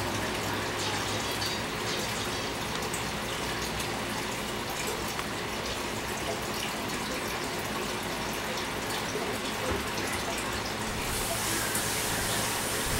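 A steady rushing noise, like running water, under a low hum that fades over the first few seconds. The hiss turns brighter near the end.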